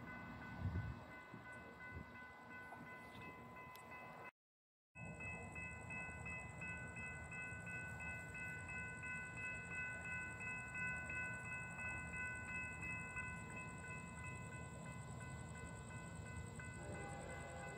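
Railroad grade-crossing warning bells ringing steadily over the low rumble of a train on the line. A brief bump comes near the start, and the sound drops to dead silence for about half a second a few seconds in.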